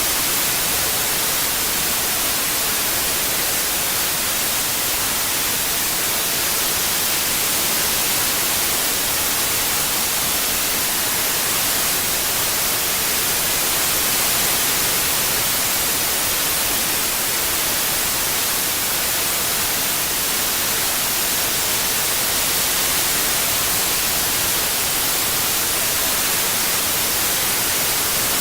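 Steady white noise: an even, unbroken hiss, strongest in the high frequencies.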